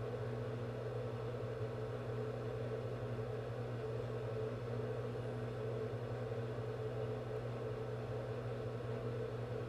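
A steady low hum with a fainter higher tone above it, unchanging throughout: background room noise. No strokes or scratches stand out above it.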